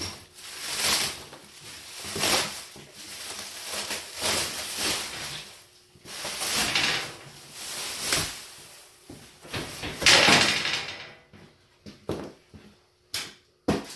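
Plastic shrink wrap being pulled off a shipping crate, rustling and crinkling in repeated bursts, loudest about ten seconds in, with a few sharp clicks near the end.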